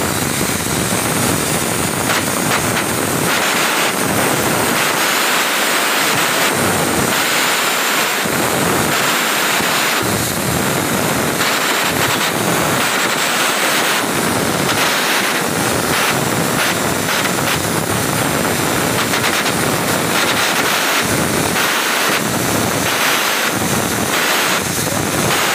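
Stick (shielded metal arc) welding: the electrode's arc crackling steadily as a vertical bead is run on steel plate.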